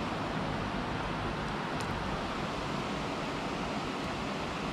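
Steady rushing of river water, a constant hiss, with some low wind rumble on the microphone.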